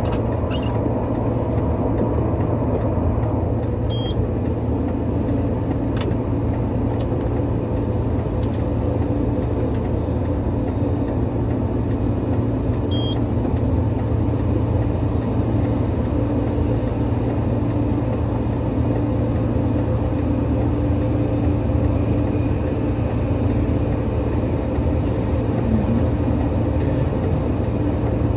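Diesel engine of heavy clean-up machinery running steadily at a constant speed, a loud unchanging hum, with a few faint clicks.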